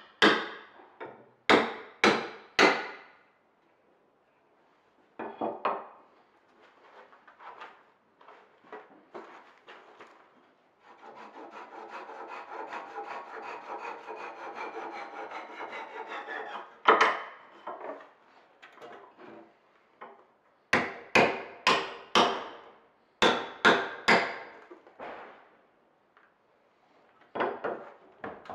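Hammer blows driving a wooden dowel into a hole in a merbau bench top: a quick run of sharp knocks, then scattered lighter taps. Partway through, about five seconds of steady handsaw strokes cutting the dowel off near the surface, followed by more runs of sharp knocks.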